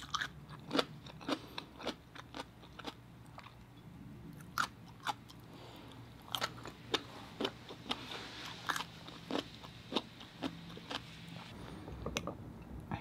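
Close-miked chewing of a crisp cucumber stick topped with fish-egg sauce: irregular sharp crunches and wet mouth clicks, roughly two a second.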